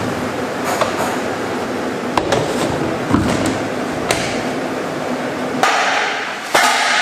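Clatter of work equipment being handled: about seven sharp knocks and clanks spread over a few seconds, over a steady rushing noise that grows louder near the end.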